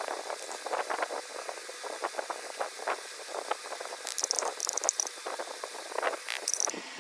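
A spoon spreading thick cake batter in a plastic container: a run of irregular soft scrapes and clicks, with sharper, hissier scraping about four to five seconds in and again near the end.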